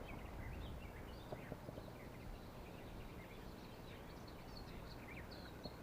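Faint birdsong: many short chirps and trills from small birds, over a low steady outdoor background, with a few soft clicks.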